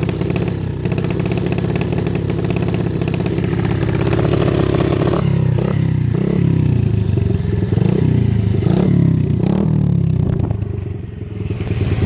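90cc dirt bike engine running steadily for about five seconds, then revved up and let fall back about five times in a row, easing off briefly near the end before picking up again.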